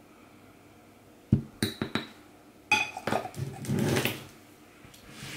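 A metal spoon knocks and clinks against glass jars about a second in. Then comes a cluster of knocks and a scraping twist as the screw lid goes back on the glass jar of carob flour.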